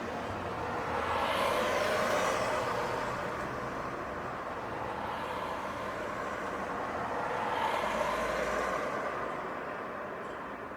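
City street traffic: two vehicles pass by one after the other, their noise swelling and fading, the first about two seconds in and the second a few seconds later.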